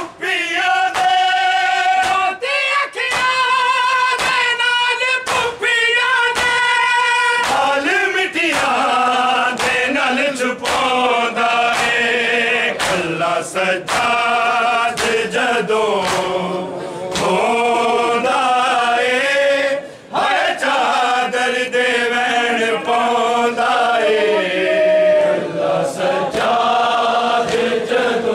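A group of men singing a Punjabi noha (Muharram lament) in unison, with long, wavering sung lines. Behind the singing is a steady beat of sharp slaps, about three every two seconds: the mourners' matam, hands striking bare chests.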